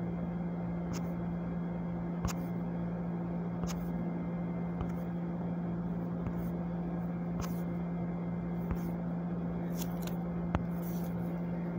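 A steady low electrical-sounding hum with faint, irregular clicks and taps roughly once a second, from a finger scrolling and tapping through the list of reactions on a device.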